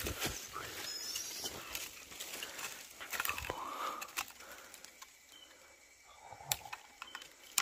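Dry leaf litter and twigs rustling, with scattered sharp clicks and snaps, as a hand sets a string noose snare for mice at a burrow.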